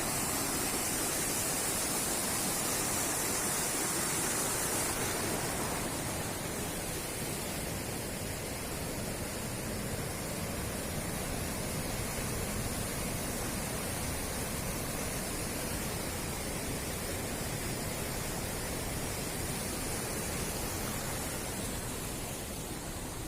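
Waterfall: the steady rushing noise of water pouring down and splashing.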